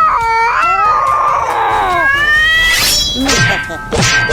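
Cat meowing, several drawn-out calls that rise and fall in pitch and overlap, with a couple of quick whooshing sweeps in the second half.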